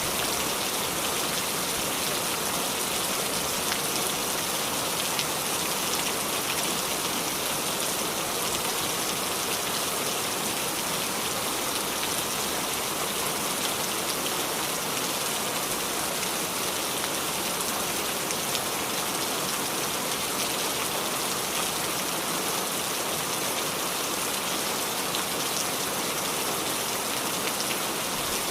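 Heavy rain falling steadily on a hard surface, a dense hiss with fine scattered drop ticks.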